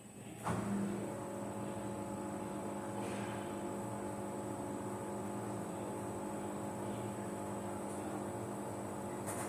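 Samsung front-load washing machine running, a steady machine hum that comes on suddenly about half a second in.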